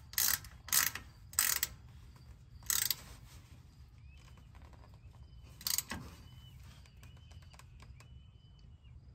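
Ratchet wrench tightening the fill plug in the Ford 10.5-inch rear axle's differential cover: a short burst of ratchet clicks on each back-swing, four in the first three seconds and one more near six seconds.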